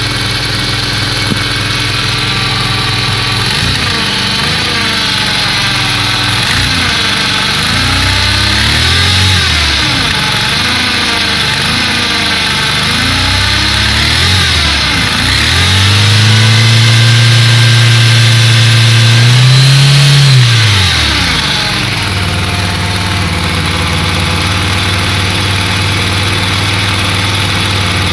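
Car engine running cold: idling, then revved in several short blips, then held at higher revs for about five seconds before dropping back to idle. The owner is checking for a rocker-arm knock that he hears when the engine is cold.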